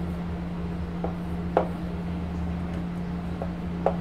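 Writing on a board: a handful of short taps and strokes from the writing tool, the clearest about one and a half seconds in and just before the end, over a steady low hum.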